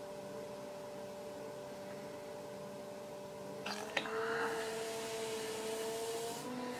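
Electric pottery wheel motor running with a steady whine. About four seconds in there are two sharp clicks, after which the whine sits a little higher and a soft hiss of hands on the wet spinning clay comes in for a couple of seconds.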